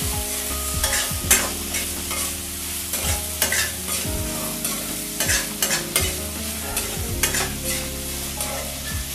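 Diced vegetables frying in oil in a kadai, stirred round with a spatula that scrapes and clinks against the pan at irregular intervals, over a steady light sizzle.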